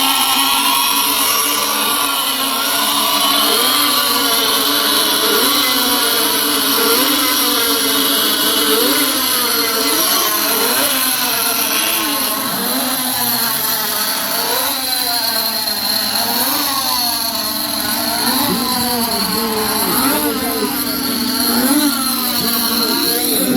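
Nitro RC racing boats with twin glow engines running flat out around the course. Their high-pitched engine whine swoops up and down over and over as the boats pass and turn.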